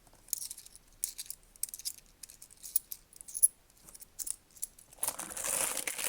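10p coins clinking as they are sorted through by hand, a scatter of light clicks. About five seconds in, a louder, continuous rustle of coins and bag starts.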